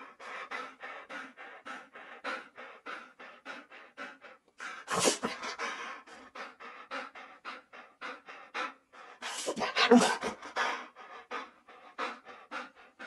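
Dhole (Asian wild dog) vocalizing: a rapid run of short, breathy calls, about four a second, with two louder, longer calls about five and ten seconds in.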